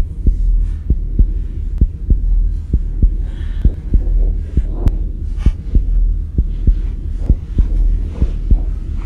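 A heartbeat sound effect: repeated low thumps, several a second, over a deep steady drone.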